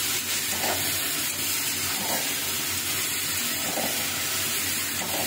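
Chopped leafy greens with stalks and vegetable pieces sizzling and steaming in oil in a pan on a gas stove: a steady hiss with a few faint pops, as the salted greens cook down in their own released water.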